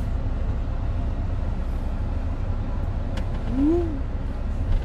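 Low, steady rumble inside the cabin of a Jeep Renegade driving on its 1.3 turbo engine. A short rising-then-falling tone comes about three and a half seconds in.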